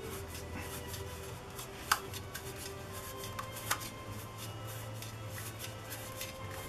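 Plastic petal lens hoods being handled: light rubbing and small clicks, with a sharp plastic click about two seconds in and another near four seconds, over quiet background music.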